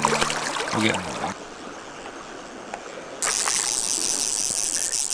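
Water splashing as hands let a caught sockeye salmon slip back into a shallow river. After about two quieter seconds, the steady rush of fast river water close to the microphone comes in suddenly.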